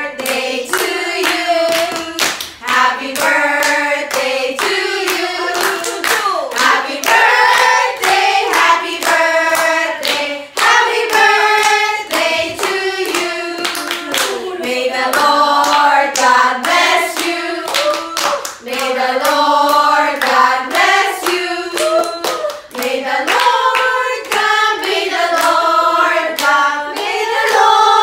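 A group of women singing a birthday song together and clapping their hands along with it.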